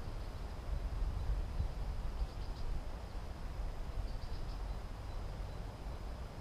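Outdoor nature ambience: a steady low rumble with a faint, high insect trill held throughout, and short clusters of chirps about two and four seconds in.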